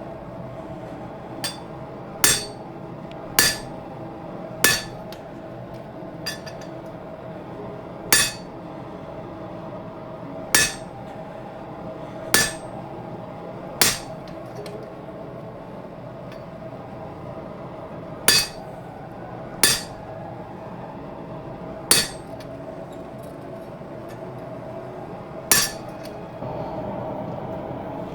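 Hand hammer striking a fullering tool to drive a fuller groove into a hot leaf-spring steel sword blade on the anvil. There are about a dozen sharp, ringing blows, one every second or two with a few seconds' pause in the middle, over a steady hum.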